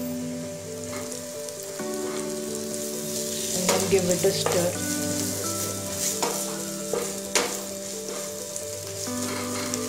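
Sliced onions, green chillies and spices sizzling as they fry in oil in a nonstick frying pan. They are stirred, with several short knocks of the stirrer against the pan.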